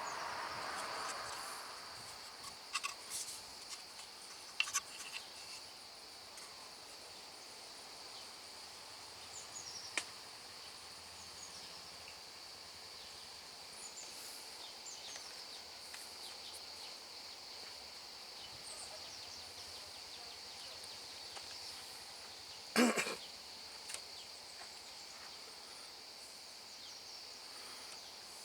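Steady high-pitched insect chirring, like crickets, with scattered clicks and knocks from handling tools and parts, the loudest a short clatter about three quarters of the way through.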